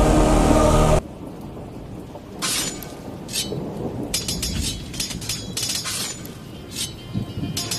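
Music cuts off about a second in. It gives way to a crackling, rain-like noise with irregular sharp bursts.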